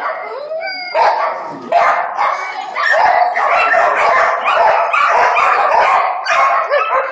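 Dog barking over and over during an agility run, in separate barks at first and then almost without a break from about three seconds in.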